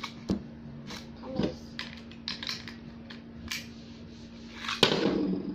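Light plastic clicks and taps as a toy spinning top is fitted into its rip-cord launcher, then near the end a sharp crack followed by a rush of noise as the cord is pulled and the top launched.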